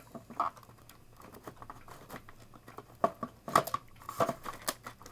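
Irregular small clicks, knocks and rustling of objects being handled on a desk. The louder clicks cluster between about three and five seconds in.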